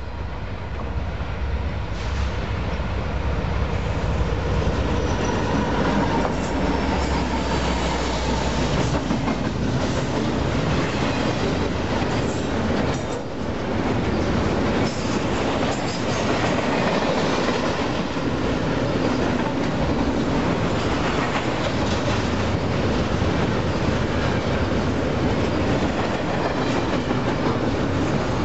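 A Union Pacific double-stack container train passing close. Its three diesel locomotives rumble deeply by in the first several seconds, then the stack cars roll past with steel wheels clattering over the rail joints and some wheel squeal.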